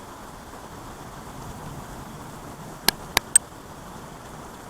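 Heavy rain falling steadily, a constant hiss, with three sharp clicks in quick succession a little past the middle.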